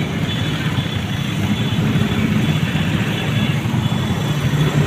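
Steady low hum of car and motorcycle engines in slow-moving traffic.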